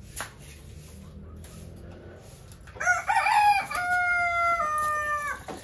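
A rooster crowing once, starting about three seconds in: one long call of nearly three seconds that steps down in pitch in stages before breaking off.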